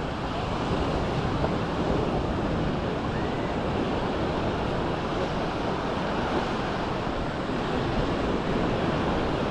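Mediterranean surf washing onto the beach, a steady rush of waves, with wind buffeting the microphone.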